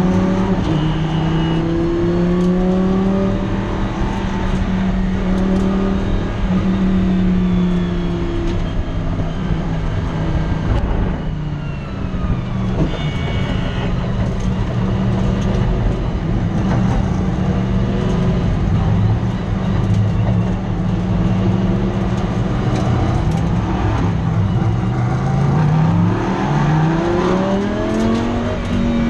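Race car engine heard from inside the cockpit at racing speed, its pitch rising and falling with the throttle. It drops off around eleven seconds in, then pulls hard through the gears near the end, the pitch climbing and stepping back at each quick upshift.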